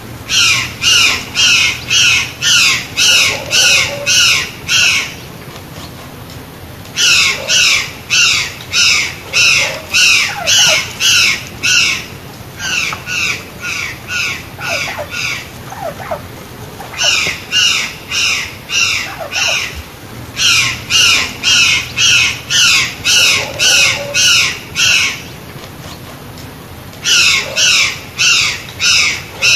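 White-naped jay (gralha-cancã) calling loudly and over and over, about two calls a second in runs of several seconds separated by short pauses. One run near the middle is fainter than the rest.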